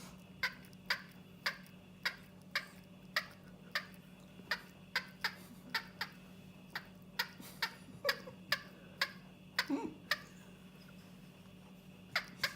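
Freshly cooked chicken giving off short sharp clicks and pops, about two a second, that stop about ten seconds in and start again near the end.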